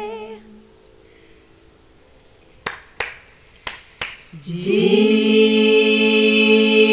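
A solo woman's voice ends a sung line. After a short pause come four finger snaps in two pairs. An a cappella choir then slides up into a steady held chord of several voices.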